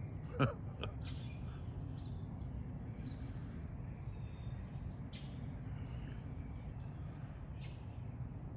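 Brief, scattered high chirps from peachicks peeping as they forage with the peahens, over a steady low background rumble. One short, louder sound stands out about half a second in.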